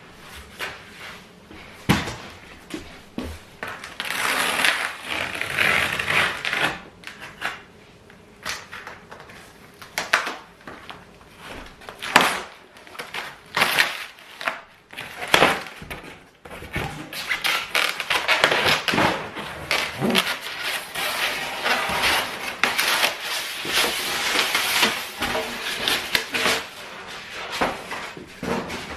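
Irregular knocks and clatter with stretches of scraping and rustling, from handling and putting together parts of a flat-pack dining set.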